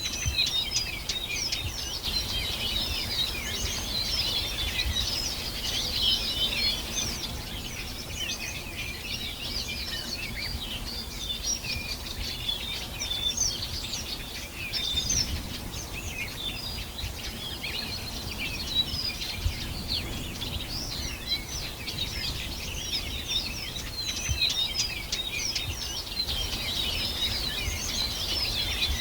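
A chorus of many small birds singing and chirping at once, dense and continuous, over a low background rumble.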